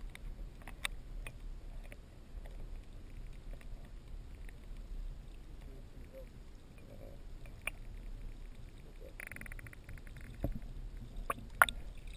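Muffled sound of shallow seawater picked up by a camera held underwater: a low steady rumble with scattered sharp clicks and knocks, and a rapid buzz lasting under a second about nine seconds in.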